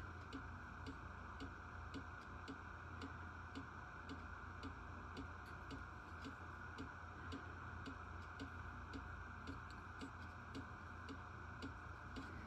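A clock ticking steadily, about two ticks a second, over a faint steady room hum.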